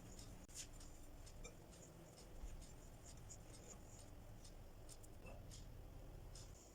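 Near silence: faint scattered light ticks and soft rustles over a low room hum.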